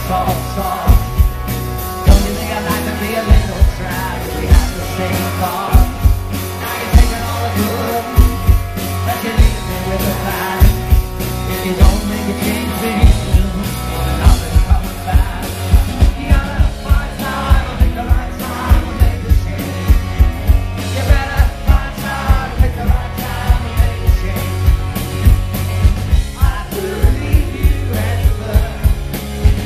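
Live rock band playing from the stage: electric guitars, bass and drums on a steady beat, with a male lead voice singing, heard loud from within the audience.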